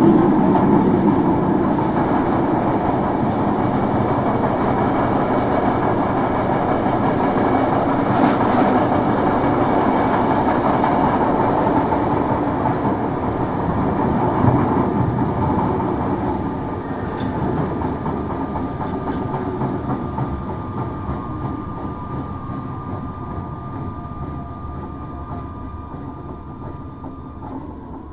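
Tokyo Metro 01 series subway car running and slowing, its wheel and motor noise fading steadily as the train decelerates. The car carries abnormal wheel noise from flat spots that all but drowns out its motor brushes. A steady high tone sounds through the second half and stops just before the end.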